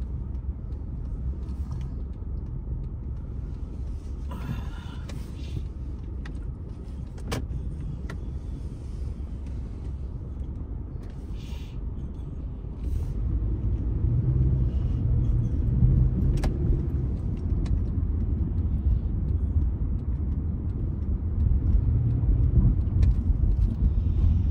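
Road and engine noise of a moving car heard from inside: a steady low rumble that grows louder about halfway through, with a couple of faint sharp ticks.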